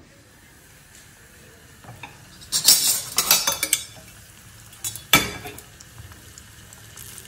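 A flour-coated chicken piece sizzling gently in hot oil in a pan. About two and a half seconds in comes a rapid clatter of metal utensils clinking against each other, and a single sharp knock follows about five seconds in.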